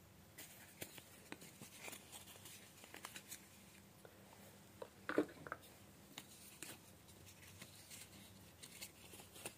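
Faint scattered clicks and light rustling of handling, with one brief louder sound about five seconds in.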